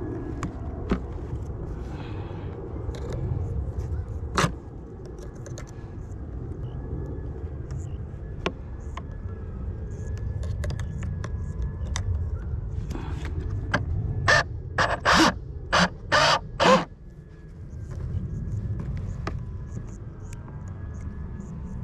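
Knife cutting and scraping at fishing line wound round an RC boat's propeller, with clicks of the plastic hull being handled over a low wind rumble on the microphone. A little past halfway comes a quick run of about six loud, short rasping strokes.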